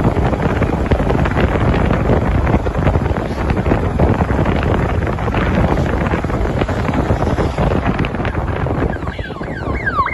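Wind buffeting the microphone on a moving motorcycle: a loud, dense, fluttering rush. Near the end the rush eases and a few quick sliding tones come in.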